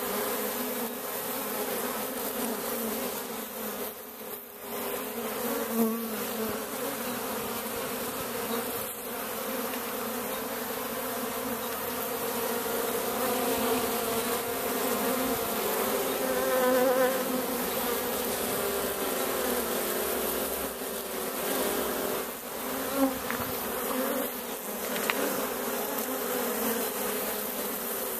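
A colony of honeybees buzzing at the entrance hole of their nest in a wooden wine barrel: a steady, dense hum of many wings at several overlapping pitches, briefly louder a couple of times.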